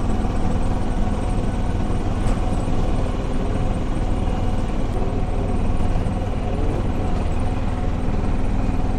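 Auto-rickshaw engine running steadily while the vehicle drives along, heard from on board.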